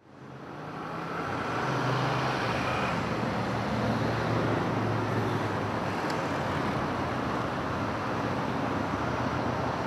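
Steady road-traffic noise with a low engine hum, fading in over the first couple of seconds.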